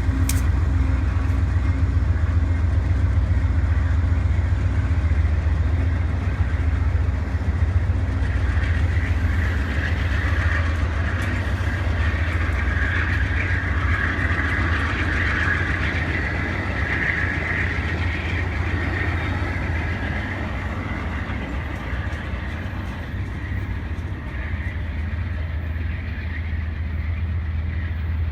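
Amtrak passenger train moving past, its diesel locomotive (GE P42DC #34) giving a steady low rumble under the rushing and clatter of car wheels on the rails. The wheel noise swells in the middle, and the whole sound fades slowly toward the end.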